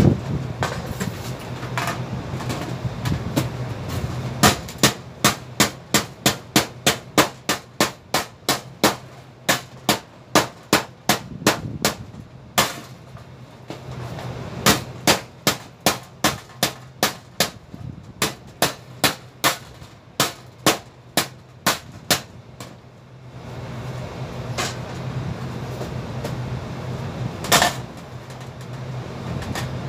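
Hammer blows on sheet-metal ductwork, about two or three a second in two long runs with a short pause between, then two single strikes near the end. A steady low hum runs underneath.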